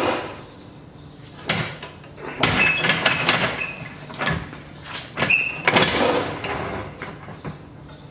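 A 2.5-ton aluminum and steel floor jack being pulled across a concrete floor: its wheels rolling and scraping, with metal rattles and short squeaks, in four or five spells.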